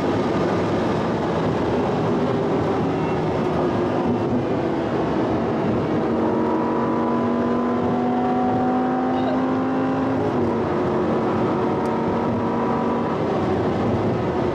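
Audi R8 running at high motorway speed, heard from inside the cabin: a steady rush of road and wind noise under the engine. From about six seconds in, the engine note stands out and climbs slowly as the car pulls harder, then sinks back into the noise near the ten-second mark.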